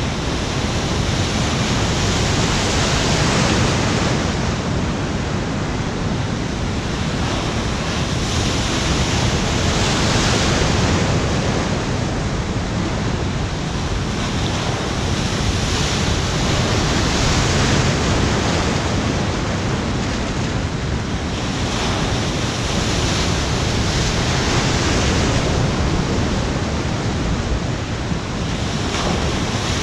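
Machine-made waves in an artificial surf pool breaking and rushing as whitewater against the pool wall, a continuous wash that swells and eases every few seconds.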